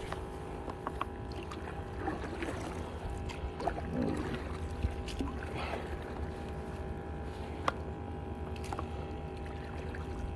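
Paddling a kayak: paddle blades dipping into and dripping water, with a few sharp knocks against the hull, over a steady low hum.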